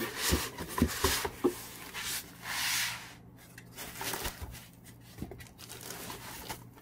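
Unboxing handling noise: foam packing end caps rubbing and knocking against a cardboard box as a projector is slid out, with a louder rustle a little past two seconds in, then the plastic bag around the projector crinkling under the hands.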